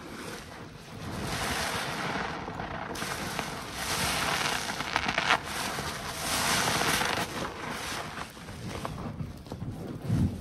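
A soaked waffle car wash sponge being squeezed and kneaded by gloved hands in thick soapy foam: wet squishing of suds and soapy water, rising and falling in several swells a second or two long.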